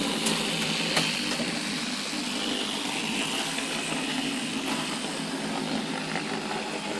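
Computer-controlled analog model railway running: a steady engine-like rumble with a low hum, the locomotive sound that the control computer generates and plays through the baseboard. A few sharp clicks come in the first second or so and one more near the middle.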